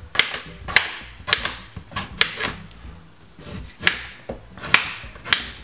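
Kitchen knife cutting a pear against a chopping board: a series of sharp chopping knocks at uneven intervals, with a short gap just past the middle.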